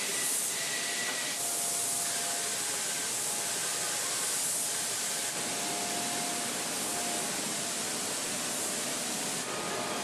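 Paint robots' rotary bell atomizers spraying paint onto a car body in a paint booth: a steady hiss of air and spray, with faint thin whining tones above it.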